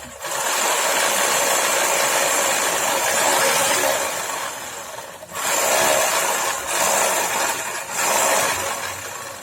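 Homemade drum sander, its sanding drum spun by a sewing-machine motor, sanding wood with a loud, rasping noise and a steady high whine; the noise eases off briefly three times in the second half as the work is moved along the drum.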